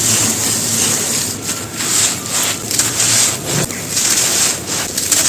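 A brittle, chalky material crumbling and crunching between the fingers: a continuous gritty crunch with many irregular sharp crackles.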